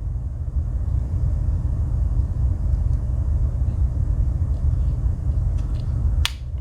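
Steady low rumble of background noise, with a sharp click about six seconds in, typical of a Swiss Army knife tool snapping against its backspring as it is opened or closed.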